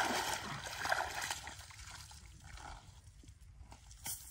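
Water splashing and dripping as people wade through shallow river water with a dripping cast net, loudest in the first second and a half and then fading.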